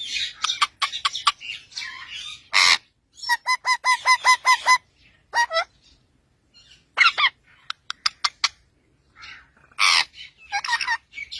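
Parrot calling: a harsh squawk, then a quick run of about eight evenly repeated whistled notes, scattered chirps and whistles, and another harsh squawk near the end.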